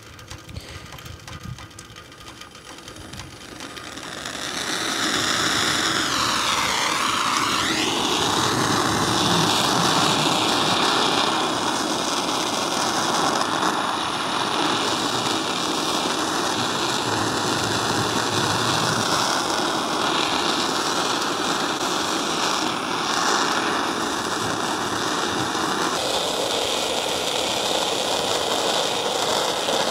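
Gas torch flame hissing steadily as it heats copper pipe joints for soldering. It is quieter at first and grows louder about four seconds in.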